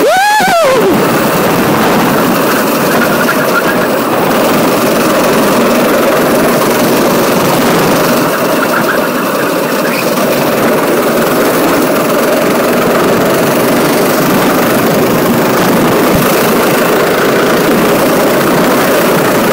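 Kart engine running hard, heard from on board the kart. Its pitch sweeps up and back down sharply right at the start, then holds fairly steady.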